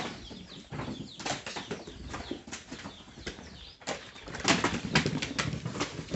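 Cassava roots being tossed onto a pile, knocking against one another in irregular clattering thuds, with a denser run of knocks a little past the middle.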